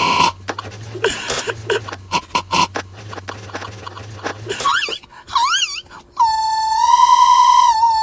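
An audio clip slowed and scrubbed by hand in the AudioStretch app. It first breaks into a crackling, stuttering trickle of fragments. Then it stretches into warbling, gliding whistle-like tones that settle, about six seconds in, into a held, frozen drone.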